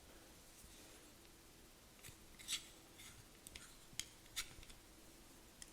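Faint, sharp clicks and light scrapes of small metal parts being handled, about six in the second half, while the old wick and wadding are worked out of a vintage petrol lighter.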